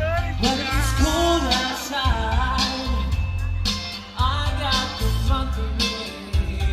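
Motown-style song playing loudly, with a singer over a strong bass line and steady beat.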